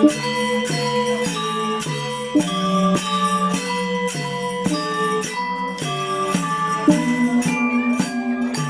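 Balinese gamelan angklung ensemble playing: struck metal keys ring out a melody of notes changing a few times a second over a low, sustained tone that pulses.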